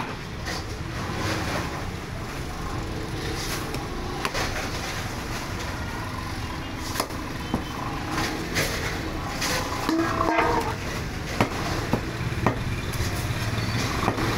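Knife cutting a large fish on a wooden chopping block, with sharp taps and knocks of the blade against the block every second or two, over a steady market and traffic din.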